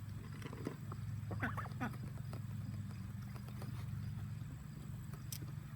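Ducks giving a few soft, faint calls over a steady low hum.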